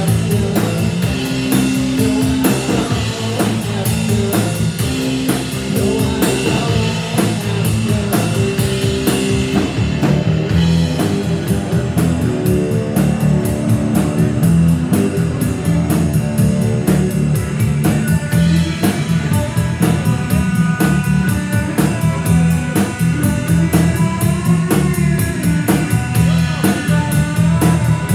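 A rock band playing live, with drum kit and guitar.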